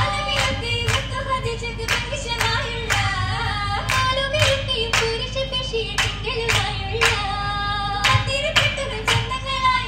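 Oppana: a group of girls sing a Mappila song together while clapping their hands sharply in a steady rhythm on the beat.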